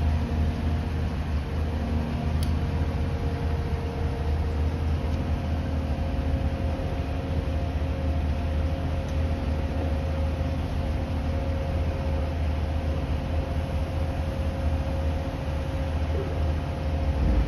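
Heavy scrap-yard grapple machine's diesel engine running steadily, a deep low rumble with a faint steady whine over it.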